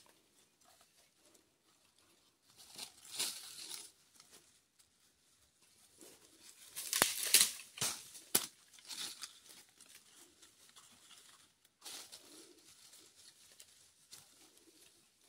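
Dry leaves and twigs rustling and crackling under hands working in the undergrowth, coming in irregular bursts. It is loudest about seven to eight and a half seconds in, with a couple of sharp snaps.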